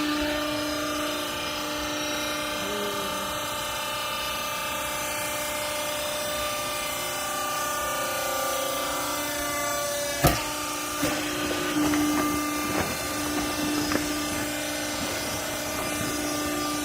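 Garment press baler running with a steady mechanical whine. A sharp bang comes about ten seconds in, followed by a few lighter knocks.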